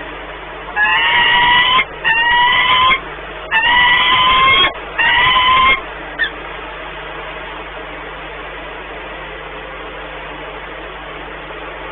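Peregrine falcon giving four drawn-out, harsh calls of about a second each, each rising slightly, then a short chip, over a steady hiss. These are calls of a pair bonding at the nest.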